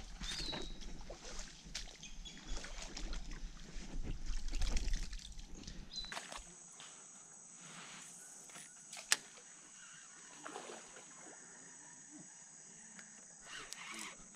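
Sloshing and trickling of shallow water with rustling as someone moves through flooded forest for the first several seconds. Then a quieter stretch with a steady high hiss and one sharp click about nine seconds in.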